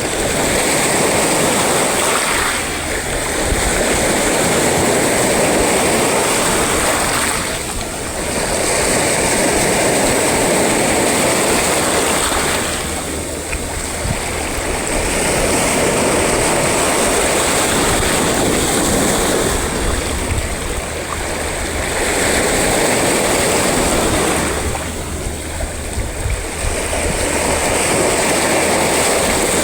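Sea waves rolling in and washing up the shore, a continuous surf that swells and eases about every five seconds.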